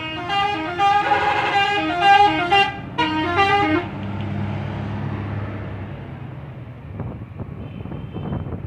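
Telolet bus horn playing a stepping multi-note tune for about three seconds, then a shorter second phrase. After that the bus engine runs on low and steady.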